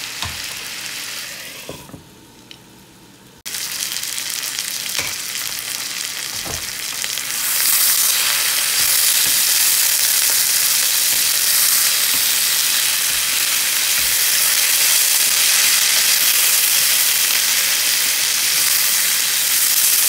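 Sliced potatoes, onions and bell peppers sizzling in a frying pan while a wooden spatula stirs them, with a few knocks of the spatula against the pan. The sizzle drops away about two seconds in, comes back suddenly, and grows louder about a third of the way through.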